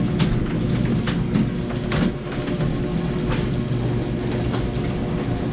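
Garage door closing: a steady rumbling hum, with a few clacks through it.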